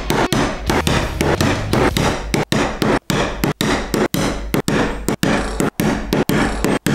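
A leather maul striking a metal punching tool held upright on leather over a rubber punching board. The blows are sharp, steady and evenly spaced, about three a second, as holes are punched through the leather.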